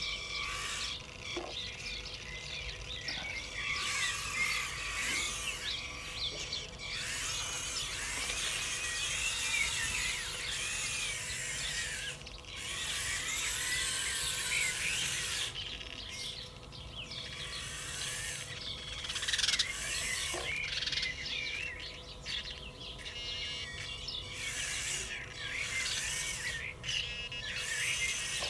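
Songbirds singing and chirping, many overlapping warbling calls, over a faint steady hum.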